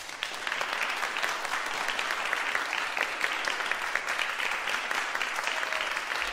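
Audience applauding: many hands clapping in a dense, even patter that holds steady.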